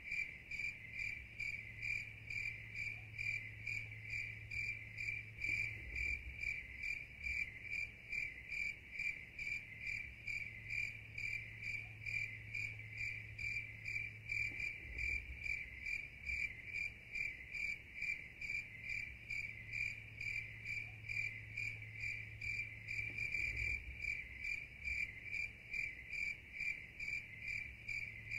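Cricket chirping in a steady, even rhythm of short high-pitched pulses.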